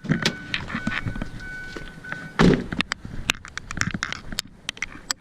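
A single heavy thunk from the car's body about halfway through, then a scatter of light clicks and knocks, as the hood of a 2010 Chevrolet Aveo is being released. A faint steady tone runs until the thunk.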